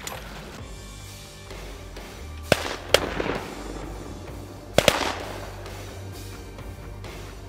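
Four shotgun shots at ducks passing overhead, in two quick pairs about two seconds apart, each with a short echo, over background music.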